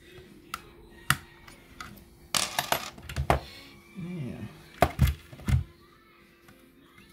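Small metal computer parts being handled and set down: a series of sharp clicks and clinks, with a short rattle about two and a half seconds in and a few louder knocks around five seconds, over a faint steady hum.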